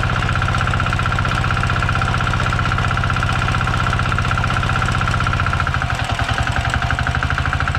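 Belt-driven abaca fiber stripping machine running loudly and steadily as abaca stalks are pulled through it to strip the fiber. Its level starts to pulse unevenly about six seconds in.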